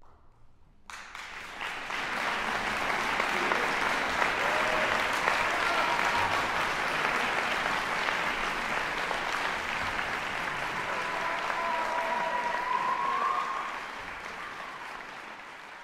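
Audience applauding, breaking out about a second in and dying down near the end.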